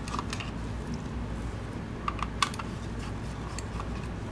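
Small screwdriver working the base screws of a Logitech MX Anywhere 3 mouse: a few light ticks of metal on the screws and plastic shell, several of them about two seconds in, over a steady low hum.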